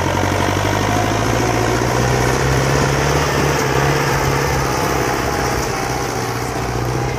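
Farm machine's diesel engine running steadily at the harvest, a constant low drone with a broad mechanical hiss over it.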